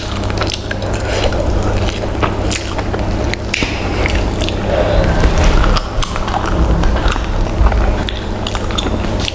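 Close-miked eating sounds: chewing with many short mouth clicks and smacks, over a steady low hum.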